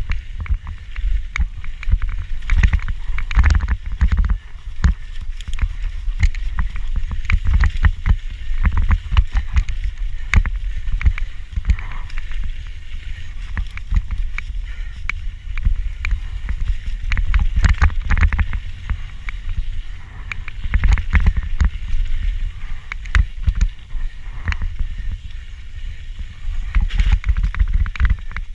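Camera rattling loudly in its mount as a mountain bike runs fast down a rough trail: a constant, irregular rapid clicking over a steady low rumble of riding noise.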